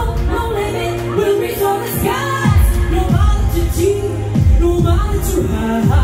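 Live band playing pop music with a singer. The bass and drums thin out early on and come back in about halfway through.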